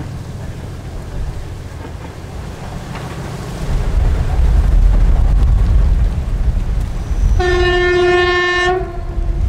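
TE10-series diesel locomotive approaching with a low rumble that swells about four seconds in. About seven seconds in it sounds one horn blast of about a second and a half, a single steady pitch.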